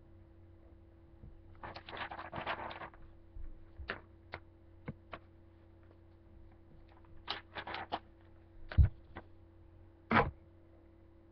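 Pen scratching on paper in short bursts while drawing, with scattered light taps between strokes and two louder knocks near the end.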